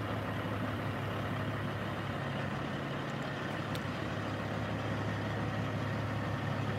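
Diesel engine of a semi tractor running at low, steady revs, a constant low hum.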